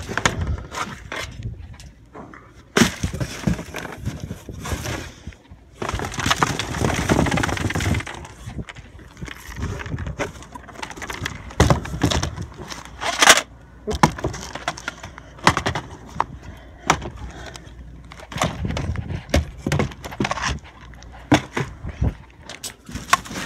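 Trash being rummaged through in a dumpster: plastic bags and cardboard rustling and crinkling, with scattered knocks and clatters of items being moved. There are two longer stretches of rustling, about three seconds in and again around six to eight seconds in.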